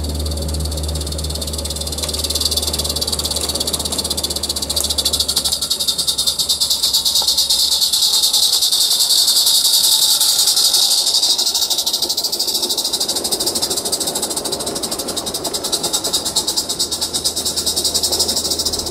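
Roundhouse live steam garden-railway locomotive running under steam with a train: rapid, even exhaust chuffs over a loud steam hiss, growing louder as it nears and passes about halfway through, then easing as the carriages go by.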